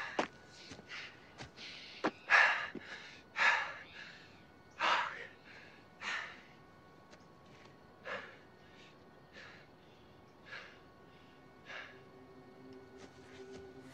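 A man breathing hard, with a loud gasping breath about once a second that grows fainter and less frequent after about six seconds.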